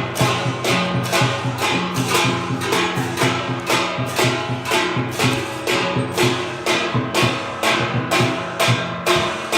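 Music with a steady percussive beat over sustained pitched notes.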